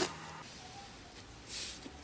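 Slime being handled: a crunchy crackle stops right at the start, then a quiet stretch with a faint, soft squish about one and a half seconds in.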